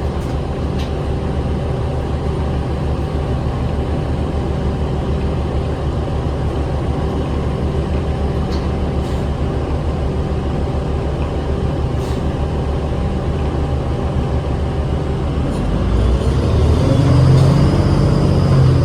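Diesel bus engine (Cummins 8.9 L six-cylinder ISL in a New Flyer D40LF) heard from inside the cabin, running steadily with a few faint rattles. Near the end it gets louder and rises in pitch as the bus accelerates.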